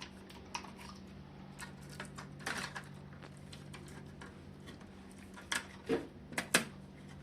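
Irregular small clicks and taps of a screwdriver and fingers on a laptop's plastic case and screws while a speaker screw is being taken out, loudest a few at a time near the middle and again past halfway.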